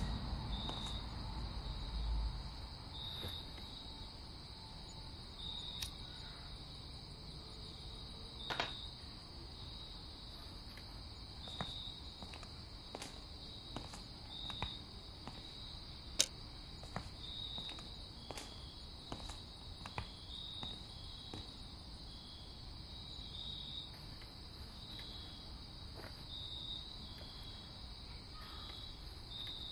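Crickets chirping as a steady, high-pitched night ambience, with a few faint clicks scattered through. A low tail of music fades out over the first two seconds.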